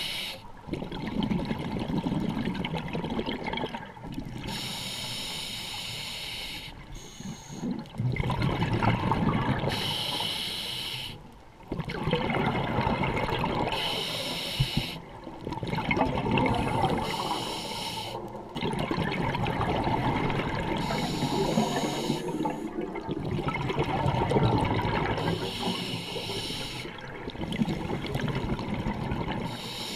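Scuba diver breathing through a regulator underwater: a hissing inhale about every four to five seconds, each followed by a longer stretch of bubbling as the breath is let out.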